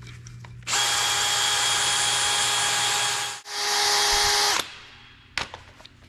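DeWalt battery-powered drill spinning a sanding attachment at a steady speed to clean out the injector O-ring bores of a valve cover. It runs for about two and a half seconds, stops briefly, then runs about a second more before stopping.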